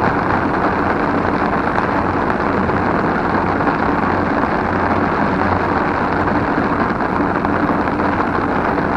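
Heavy rain drumming on an umbrella held over the microphone: a very noisy, dense, steady patter of raindrops.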